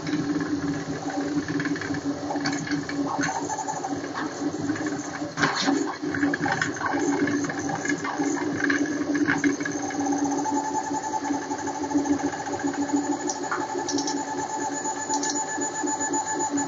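QU-BD Revolution XL 3D printer printing at 300 mm/s: its stepper motors whine in several steady tones that change as the print head changes moves, one higher tone dropping out about four seconds in and returning about ten seconds in. A stretch of rattling clicks from the moving head and frame comes about five to seven seconds in.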